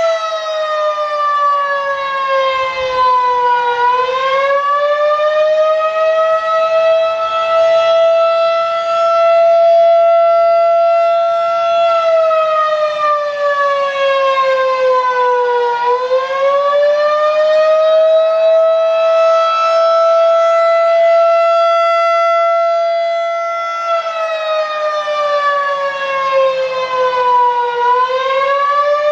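Federal Signal 2001-DC outdoor warning siren sounding a loud, high steady tone. About every twelve seconds its pitch sags and climbs back, three times in all.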